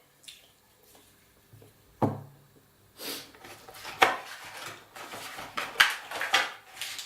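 Hands handling packaging and small parts while unboxing a remote control: a single knock about two seconds in, then a busy run of clicks and rustles from about three seconds on.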